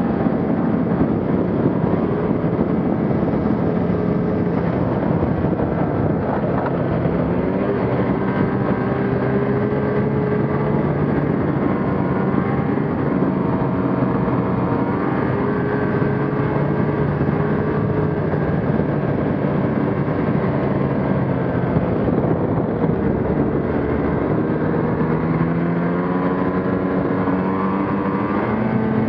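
Ski-Doo Gen 4 850 snowmobile's two-stroke twin engine running under way, its pitch rising and falling with the throttle and climbing steadily near the end, over a constant rushing noise.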